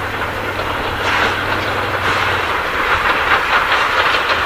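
Steam locomotive running along the track: a steady noise of the engine and its wheels on the rails, with some hiss.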